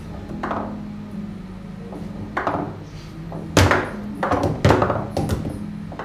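Foosball table in play: the ball struck by the rod-mounted players and knocking against the table walls, with rods clacking, heard as about six sharp knocks. The two loudest come about three and a half and four and a half seconds in.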